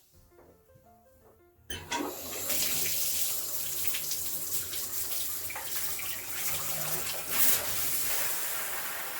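Shower running: water comes on suddenly about two seconds in and sprays steadily from a newly installed shower head, which is being tested for leaks at its connections. Faint music before the water starts.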